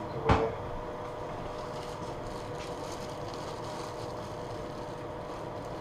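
Kitchen fan running with a steady, even hum, with one sharp knock about a third of a second in.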